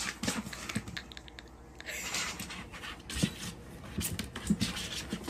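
Irregular light clicks, taps and scrapes of hard plastic as a cat rummages with its head inside a cut-open plastic cat-litter jug and climbs over the jugs. There is a short scraping rustle about two seconds in.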